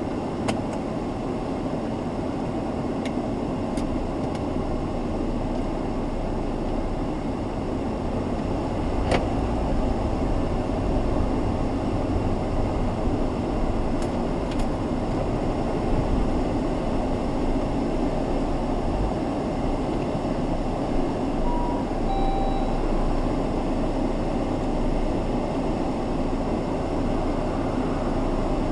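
Steady engine and road rumble inside a car's cabin as the car moves off and drives at low speed. A few faint clicks early on, and a couple of short electronic beeps about three-quarters of the way through.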